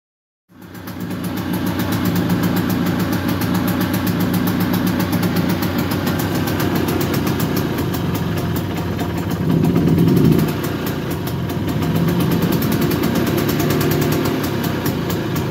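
1969 Spanish Vespa 125's single-cylinder two-stroke engine running at idle, cutting in suddenly half a second in, with a brief rev about ten seconds in and a milder rise in revs a couple of seconds later.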